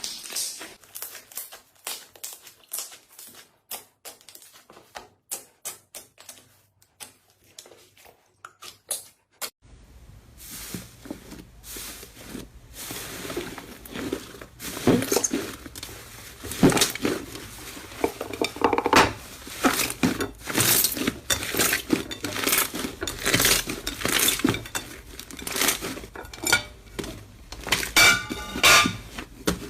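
Slime being squeezed, pressed and poked by hand, giving a fast, irregular run of small wet clicks, pops and crackles. The clicks are soft for about the first ten seconds, then louder and denser over a faint steady background noise.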